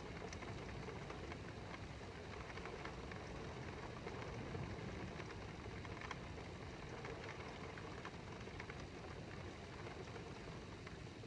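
Rain falling steadily during a thunderstorm: a faint even hiss with many small scattered drop ticks over a low steady rumble.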